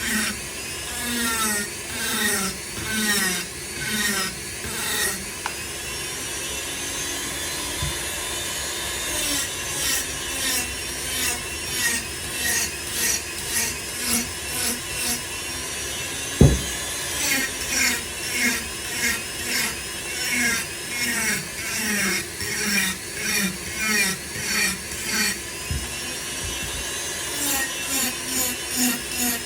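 Foredom flexible-shaft rotary tool grinding wood with a carving bit in short repeated passes, about two a second, over the motor's steady whine. A single sharp knock comes about halfway through.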